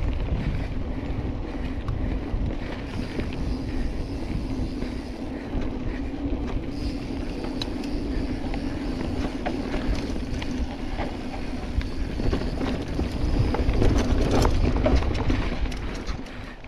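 Mountain bike descending a dry dirt trail at speed: wind buffeting the handlebar-mounted microphone over a steady rumble of tyres on dirt, with many small clicks and rattles from the bike, loudest near the end.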